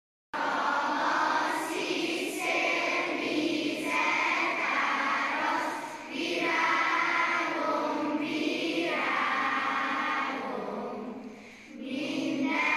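Children's choir singing, starting abruptly just after the opening, in long sung phrases with short dips about six and eleven and a half seconds in.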